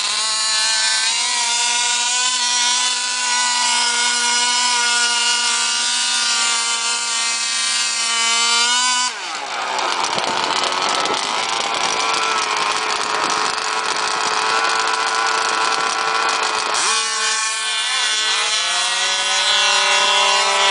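Small two-stroke engine of a radio-controlled drag car running at a high, steady pitch. About nine seconds in it breaks into a harsh, ragged full-throttle sound for some eight seconds as the car launches down the strip. It then returns to a steadier tone that falls in pitch near the end as it slows.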